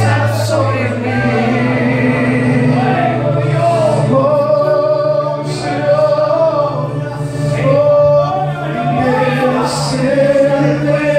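Slow worship singing: a man's voice and the congregation singing together over held low keyboard notes, which shift to a new chord about a second in.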